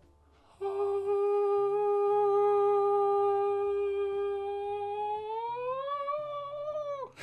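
A man singing one long held "aah" note, starting about half a second in and staying steady for several seconds, then sliding up in pitch and breaking off with a quick fall near the end. Faint background music runs underneath.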